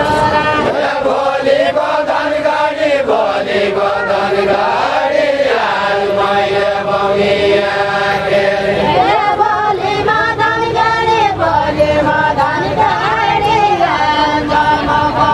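A group of men singing a Deuda folk song together, unaccompanied, in a chant-like melody of long held notes that slide between pitches.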